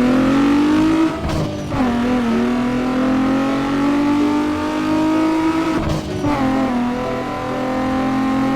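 Car engine revving, its pitch climbing steadily and dropping back twice, about a second in and about six seconds in, as if shifting gear.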